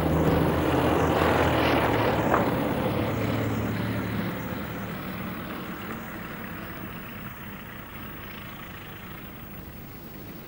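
A car's engine and tyres on rough, stony ground, fading steadily as it moves off. The last held notes of a music cue die away in the first few seconds, and there is a single sharp click about two seconds in.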